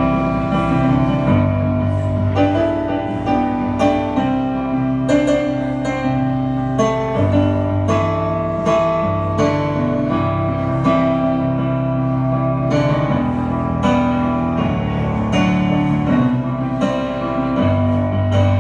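Live band playing an instrumental passage of a rock song: keyboard chords over a bass line that changes about every one to two seconds, with sharp note attacks throughout.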